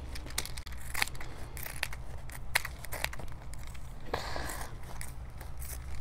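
Trauma shears cutting through denim in short, irregular snips and crunches, with a longer rasp of blades and fabric about four seconds in. It is slow, hard going through the thick cloth, tiring the hand.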